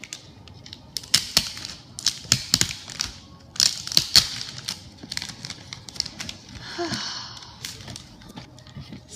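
Packaging being unwrapped and torn open by hand: a run of sharp crackles and clicks, with a longer crinkle about seven seconds in.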